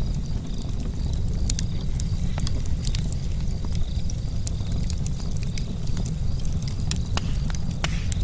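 Charcoal campfire crackling, with irregular sharp pops and ticks over a steady low rumble.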